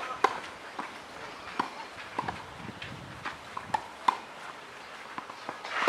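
Tennis ball struck by rackets and bouncing on a clay court during a rally: a sharp racket hit on the serve at the start, then knocks of ball bounces and strokes every second or so, one of them a forehand about four seconds in.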